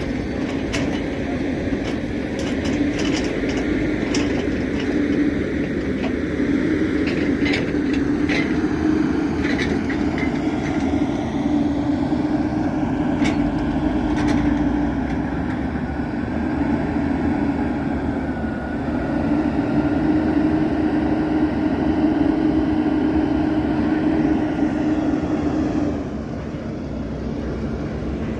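Heavy road-construction machinery, its engine running steadily, with sharp knocks and clanks in the first half. Near the end the engine note drops lower and quieter.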